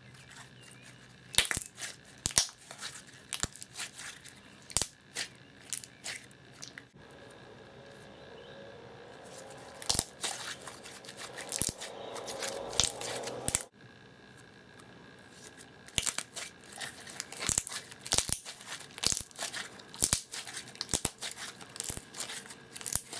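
Reactivated clear slime being kneaded and stretched by hand, giving irregular sticky clicks and pops. For a few seconds in the middle it goes into a denser, steadier squishing that cuts off sharply.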